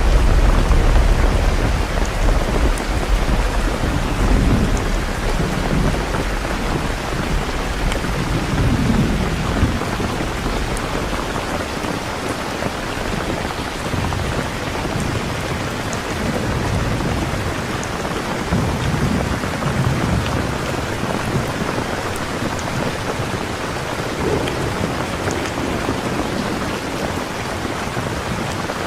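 Steady rain with low rolling rumbles of thunder that swell and fade several times, the strongest in the first couple of seconds.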